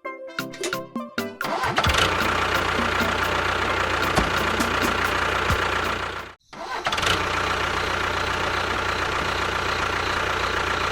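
Engine cranking with choppy, sputtering strokes, catching after about two seconds and then running steadily. It cuts out abruptly for a moment about six seconds in, then runs steadily again.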